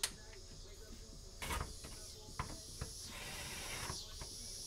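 Scattered metal clinks and knocks from exhaust pipe sections and fasteners being handled and shifted into place. About three seconds in there is a brief scraping hiss, like metal sliding on metal.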